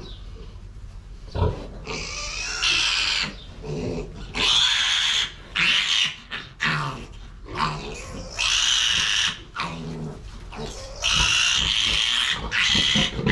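Young piglet squealing, a string of loud, shrill screams, each lasting up to about a second, as it is held and cut for castration.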